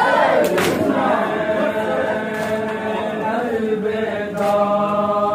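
Group of mourners chanting a noha (Urdu lament) together in a held, sung line. Sharp claps of hands struck on bare chests (matam) land in unison three times, about every two seconds, to the beat of the lament.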